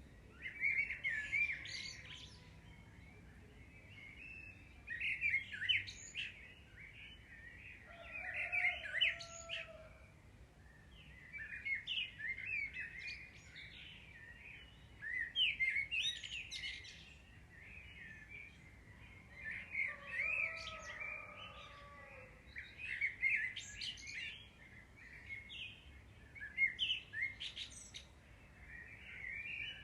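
Small songbirds chirping and singing in short bursts of quick notes every few seconds, with a fainter, lower drawn-out call twice.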